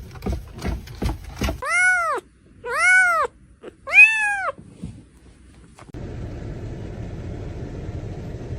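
Cat meowing three times, each meow rising then falling in pitch, after a run of quick regular taps about three a second. A steady hiss sets in about six seconds in.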